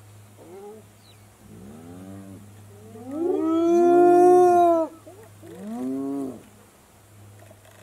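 Spotted hyenas calling: about four clear, wavering calls that rise and fall in pitch. The loudest and longest comes about three seconds in and lasts nearly two seconds.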